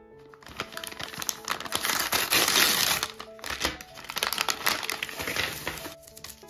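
Plastic candy pouch and candy wrappers crinkling and rustling as they are handled, loudest in the middle.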